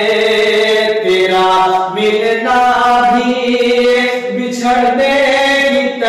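A man singing long, wavering held notes without words: a melismatic passage of a ghazal melody, in phrases that break every second or two.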